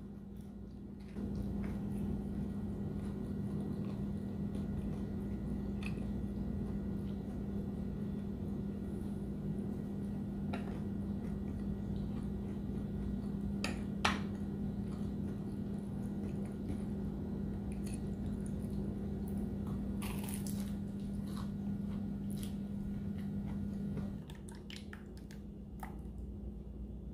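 Steady low hum with a few light clicks and crunches of food being handled, and one sharp click about fourteen seconds in; the hum stops about twenty-four seconds in.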